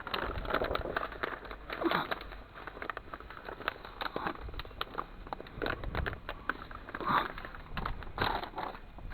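Stirring a lumpy furnace-lining mix by hand in a container: irregular gritty scraping strokes and scattered clicks as hard bits knock about.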